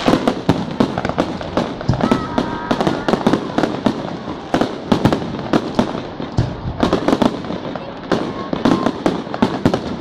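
Aerial fireworks display: shells bursting in rapid, overlapping bangs and crackles, several a second.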